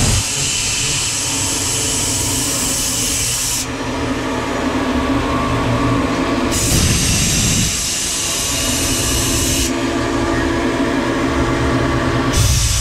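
Tormach 770M CNC mill's spindle driving an end mill through 6061 aluminum on a finish contour pass, with coolant on the cut. A steady machine hum runs beneath a high hiss that cuts in and out about every three seconds.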